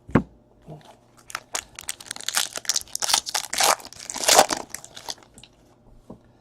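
Trading-card packaging crinkling and crackling as cards are handled: a dense run of sharp crackles that swells in the middle and fades out near the end.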